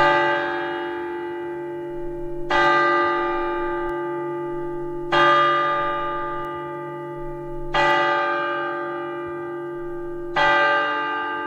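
A large bell tolling five times, one stroke about every two and a half seconds, each ringing on and fading slowly before the next.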